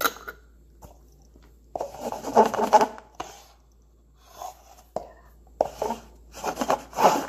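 Paper cups being handled and scraped across a wooden floor in several short rubbing bursts, the longest about two seconds in.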